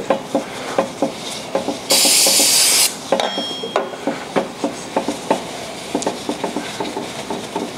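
Paper towels rubbing and wiping over a Ford Model T crankshaft, with small metal clinks and knocks as it is handled. About two seconds in, a loud hiss of spray lasts about a second, followed by a short squeak.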